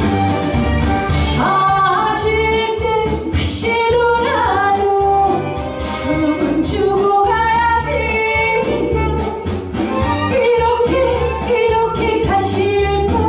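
A woman singing a Korean-language song into a microphone over instrumental accompaniment with a steady bass beat.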